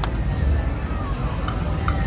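Slot machine game sounds during a spin: a sharp click at the start, then short electronic ticks about two and a half a second near the end, over a steady low casino rumble.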